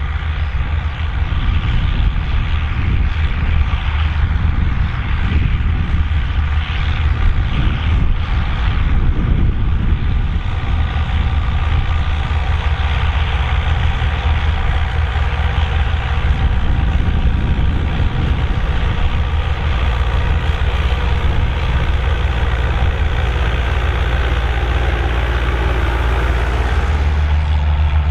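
Volvo BM tractor's diesel engine running steadily, with a heavy low note; the note shifts slightly near the end.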